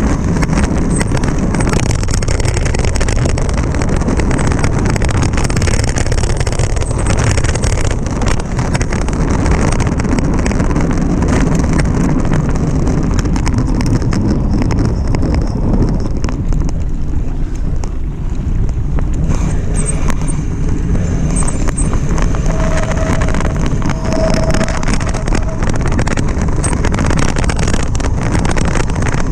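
Wind buffeting the microphone of a mountain bike's camera on a fast dirt descent, mixed with the rush of the tyres and a steady rattle of the bike over the rough trail.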